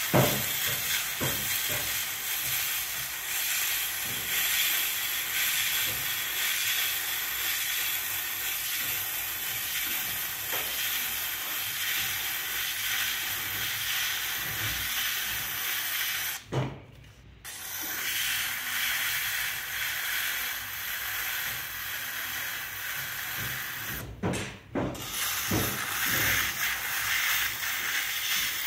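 Steady hissing scrape of a round metal rib held against a leather-hard terracotta bowl spinning on a pottery wheel. It stops briefly twice when the tool comes off the clay, once about halfway through and again about three-quarters of the way through.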